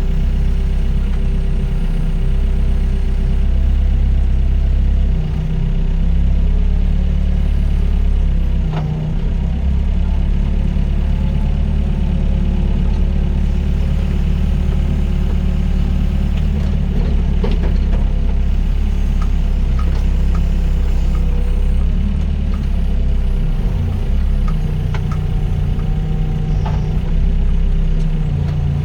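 Doosan DX55 mini excavator's diesel engine running steadily as it works, its pitch shifting a few times under hydraulic load, with a few short knocks along the way.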